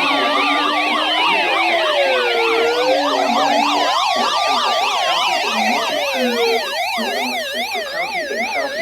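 Several sirens sounding at once: a slow wail rising and falling over a few seconds, layered with fast yelping sweeps. The slow wail stops about two-thirds of the way through while the yelping goes on.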